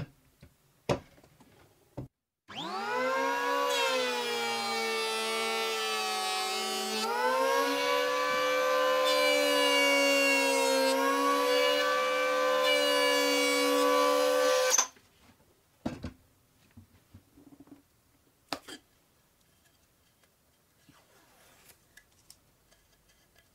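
Electric hand planer in a rail jig starting up with a rising whine, then running with a steady high whine as it planes a hardwood board, its pitch stepping up partway through, before it cuts off suddenly. Light clicks and knocks of the jig and the board come before and after.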